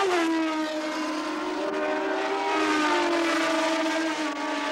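1970s Formula One race cars passing at high revs on a wet circuit. Several engine notes overlap and slide in pitch as the cars go by, with a drop in pitch right at the start.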